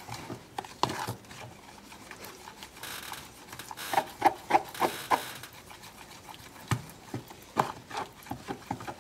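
A spoon scraping and stirring a thick melted chocolate, peanut butter and butter mixture in a plastic bowl, in irregular strokes with small knocks against the bowl's sides.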